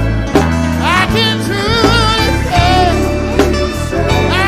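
A live gospel band playing, with bass guitar, drums and keyboard under a strong vibrato sung line that starts about a second in.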